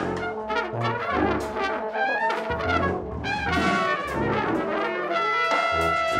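Large jazz ensemble playing, with brass most prominent: trumpets and trombones in busy overlapping lines, some notes bending, over low bass notes. About five and a half seconds in, the band settles into a held chord.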